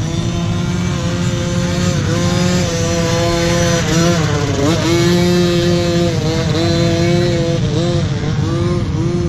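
Small pee-wee dirt bike engine held at high revs as the bike rides past. The pitch drops and climbs back about halfway through as the throttle is eased and opened again, then dips briefly a few more times near the end.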